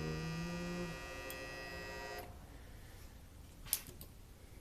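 Tecumseh refrigeration compressor buzzing as it tries to start and fails, drawing about 19 amps, until its thermal overload trips and the buzz cuts off abruptly a little over two seconds in; a sharp click follows about a second and a half later. The failed start points to a fault in the start capacitor or potential relay, which the technician sets out to check.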